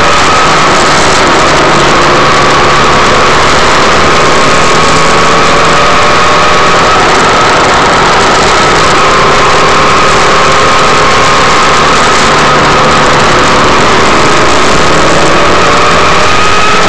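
Vehicle engine running steadily under a loud, constant rush of wind and road noise on the microphone, its pitch drifting gently up and down through the bends.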